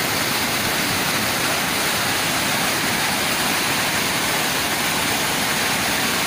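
Steady, even rush of water, heavy rain or flowing floodwater, with no separate splashes or knocks.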